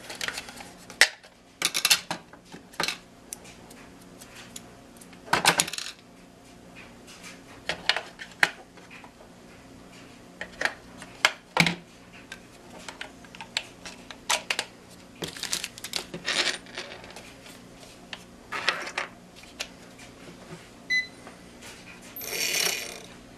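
Hard plastic clicks, knocks and metallic clinks of AA batteries being fitted into a Hubsan quadcopter's handheld transmitter and its battery cover handled: a long series of separate sharp knocks and rattles, with a short beep near the end.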